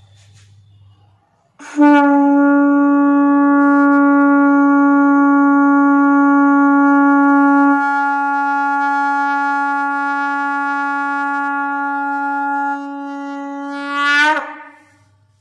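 Vamavarti shankh (left-turning conch shell) blown in one long, loud held note lasting about thirteen seconds, steady in pitch. It starts about two seconds in, eases off slightly partway through, then swells and wavers just before it breaks off near the end.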